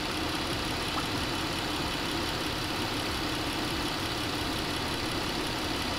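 A 3.6-litre Pentastar V6 idling steadily, heard from the open engine bay while its cooling system is bled of air after a water pump and thermostat replacement.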